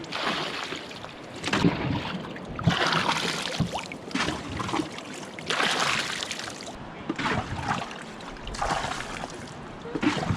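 Water splashing around a whitewater canoe in repeated bursts, every one to three seconds, over a steady rush of moving water.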